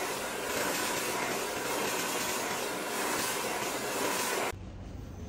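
Handheld hair dryer blowing steadily with a rushing hiss, cutting off suddenly about four and a half seconds in.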